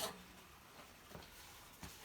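Two faint clicks of small metal parts being handled while a small-engine carburettor and its linkage are refitted, over quiet room tone.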